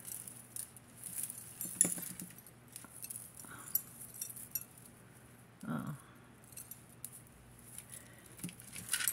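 Costume jewelry being handled and untangled: scattered light clinks and jingles of beaded necklaces, chains and metal bangles, with a louder clink about two seconds in.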